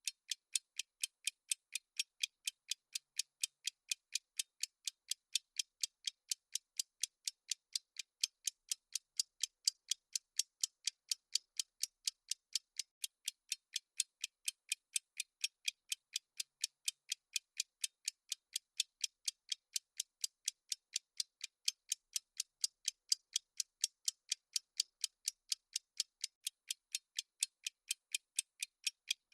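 Clock-style ticking sound effect of a countdown timer: high, thin clicks at a fast, even pace.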